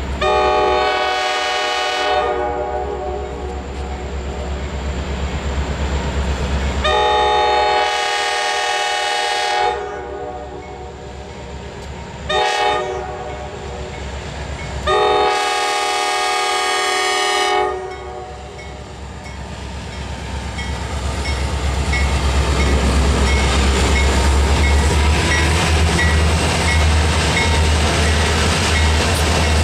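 EMD diesel freight locomotive Boston & Maine 327 sounding its multi-note air horn in the grade-crossing pattern: long, long, short, long. After the last blast the rumble of its diesel engine grows louder as it reaches the crossing and passes.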